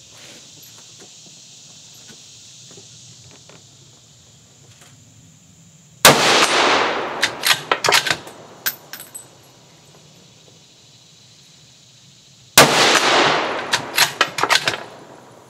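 Colt M2012 .308 bolt-action rifle with a muzzle brake fired twice, about six and a half seconds apart. Each sharp report trails off in an echo and is followed by a run of metallic clicks as the bolt is worked to eject the case and chamber the next round.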